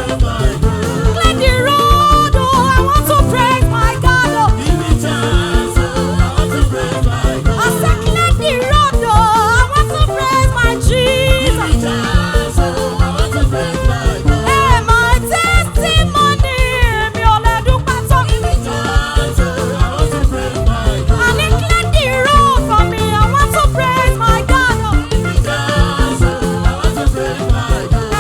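Upbeat praise-and-worship dance music: a band with a fast, steady drum beat and a voice singing over it.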